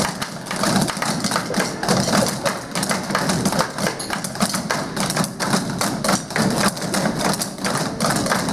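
A group of children drumming with sticks, with a tall drum among them: a busy, steady stream of stick taps and thuds, several strikes a second.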